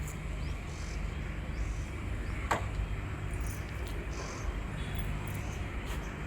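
Steady low machine hum, with faint high chirps and a single sharp click about two and a half seconds in.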